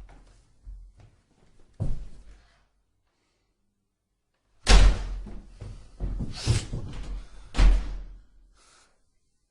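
A door banging shut: a lighter knock about two seconds in, then three loud slams, each dying away over about a second.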